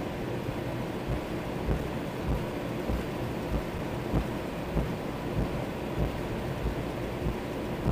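Airbus A321-211 heard from inside the cabin while taxiing, its CFM56 engines at idle: a steady rumble and hiss. A low thump recurs about every 0.6 seconds.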